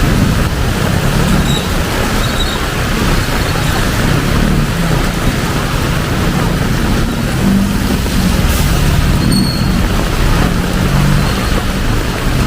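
Heavy rain pouring down on a city street, mixed with the steady running of passing traffic.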